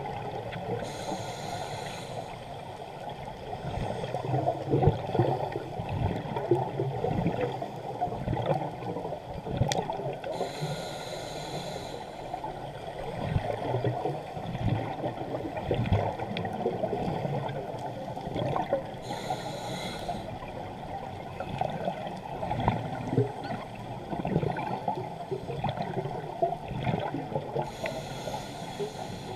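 Scuba diver breathing through a regulator, heard underwater: a hiss from the regulator four times, about every nine seconds, with gurgling exhaust bubbles in between.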